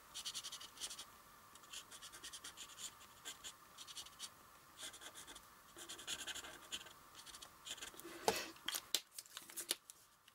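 Brush-tip marker drawing on watercolour paper: a run of short, faint scratching strokes as a star is sketched. A small knock about eight seconds in.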